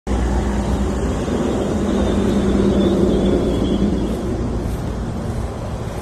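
Motor vehicle engine rumble with a steady hum that fades out about four seconds in.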